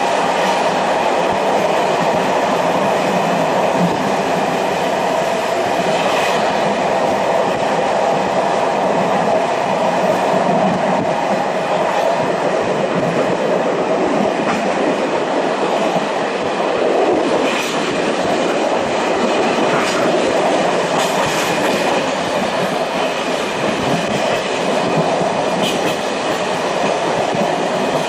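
Steady running noise of a moving passenger train heard from inside the carriage, an even rumble with a few faint clicks scattered through it.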